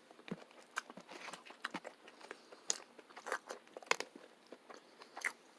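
Close mouth sounds of someone chewing a gristly bite of steak: a string of small, irregular crunches and wet clicks.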